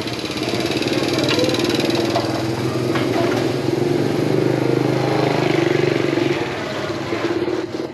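A small engine running and passing, rising in level about half a second in and dropping off near the end.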